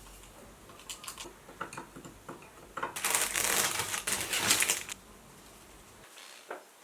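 Household handling sounds: a few light clicks and taps, then about two seconds of loud, dense rustling from about three seconds in.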